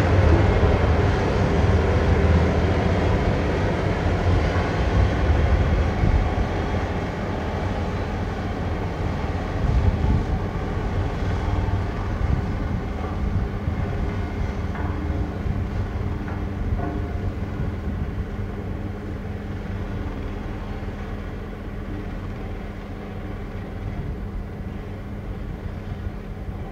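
Tractor engine running steadily under load, a low drone that slowly grows fainter as the machine moves away.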